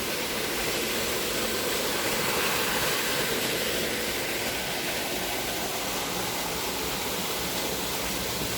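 Small waterfall splashing steadily into a pool: a continuous, even rush of falling water.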